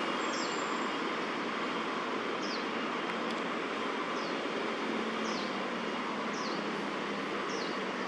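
Steady background noise of distant city traffic, with a small bird repeating a short, high, falling chirp about seven times at irregular intervals.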